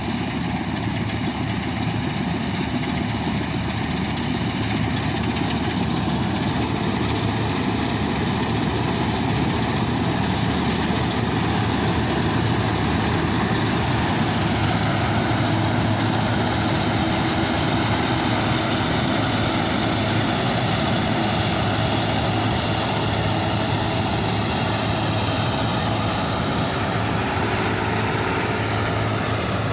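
Combine harvester running steadily while harvesting paddy rice: a continuous engine drone with whining tones from the threshing machinery that waver slightly. It grows a little louder in the first half.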